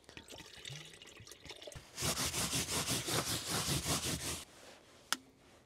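Water trickling from an insulated flask into a small plastic kettle. Then, for a couple of seconds, a paper towel is rubbed back and forth in quick strokes, mopping spilt water off a chequer-plate floor mat. A single sharp click comes near the end.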